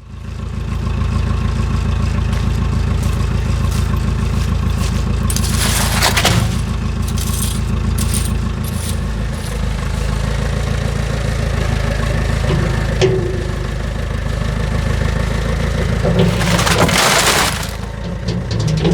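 Engine running steadily, with two short bursts of noise, one about six seconds in and one near the end.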